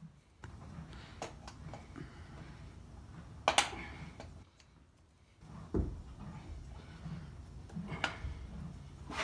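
Farrier's hammer and steel horseshoe clinking as the shoe is worked on a horse's hoof: a few sharp metallic clinks, the loudest about three and a half seconds in and another near the end, with a dull thump about six seconds in.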